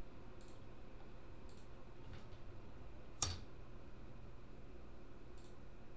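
A few faint clicks from a computer mouse and keyboard over a low steady room hum, with one sharper click about three seconds in.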